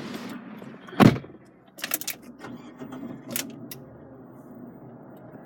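Fiat 500's electric window motor running with a steady low hum, broken by one loud thump about a second in and a few short clicks after.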